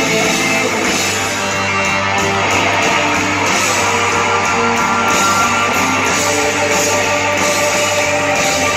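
Rock band playing live in a concert hall: an instrumental stretch without singing, led by electric guitar over a steady low bass note, heard from within the crowd.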